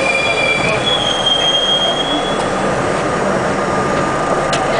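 R-32 subway train running along a station track: a steady rumble of the wheels on the rails, with a thin high-pitched squeal over the first two seconds, then a steadier, lower whine.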